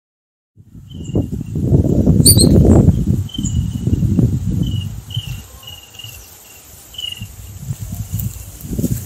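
Outdoor ambience that cuts in from silence about half a second in: a loud low rumbling noise swelling and fading, under short high chirps that repeat irregularly about once a second, with one higher descending call about two seconds in.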